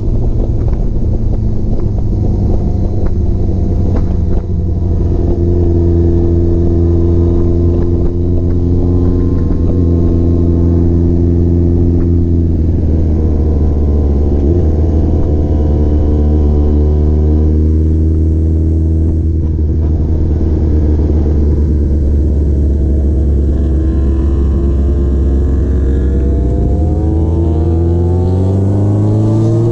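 Honda CBX750 cafe racer's inline-four engine running at a steady cruise, heard from the rider's seat. The pitch dips and settles around the middle, then revs rise near the end as the bike accelerates.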